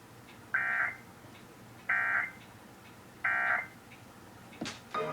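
Emergency Alert System end-of-message data signal: three short, identical bursts of buzzy digital data tones, evenly spaced about a second and a half apart, marking the end of the weather-radio alert. A couple of sharp clicks follow near the end.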